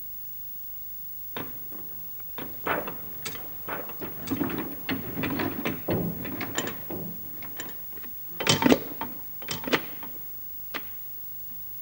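An irregular run of sharp clicks and knocks with denser scraping in between. It starts about a second and a half in, is loudest in a pair of knocks near the end, and finishes with one last knock.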